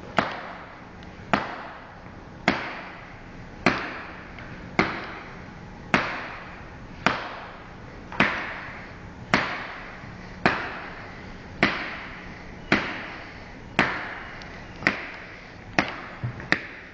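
Hands clapping slowly and steadily, about one clap a second, each clap followed by a short echo; the claps come quicker near the end.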